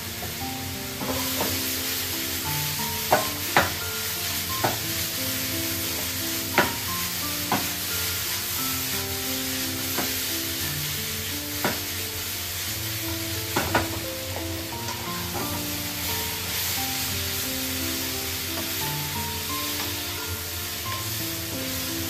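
Chicken sizzling in a hot pan as it is stir-fried, with a sharp clink of the spatula against the pan every second or two. The sizzle gets louder about a second in. Music with a melody plays underneath.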